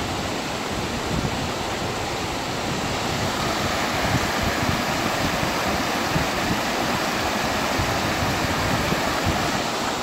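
White-water creek rushing over rocks in a steady, even rush of water.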